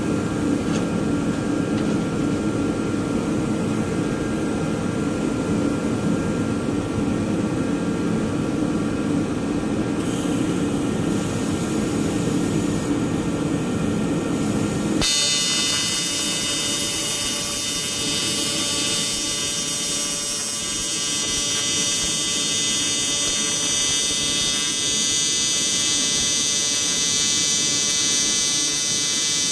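A steady low hum, then about halfway through a PrimeWeld TIG 225X AC TIG arc strikes on aluminum and holds a steady, high buzz.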